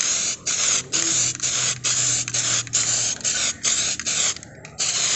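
Aerosol spray can of clear coat hissing in short bursts, about two a second, with a brief pause about four and a half seconds in.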